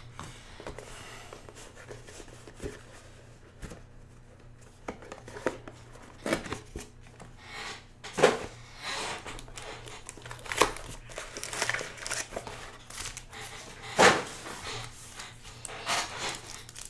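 A cardboard trading-card hobby box being opened and its foil card packs handled: scattered rustles, crinkles and sharp snaps, fairly quiet for the first few seconds.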